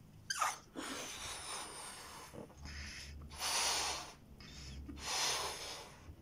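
A person blowing up a latex balloon by mouth: heavy breaths in and out, with two louder breaths about three and a half and five seconds in.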